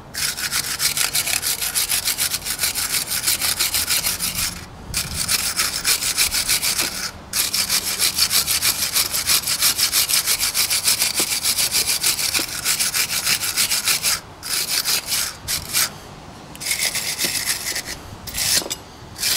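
A hand brush scrubbing the pad-guide surfaces of a KIA Ceed front brake caliper bracket in rapid back-and-forth strokes, stopping briefly several times. This is cleaning the guides where the brake pads sit.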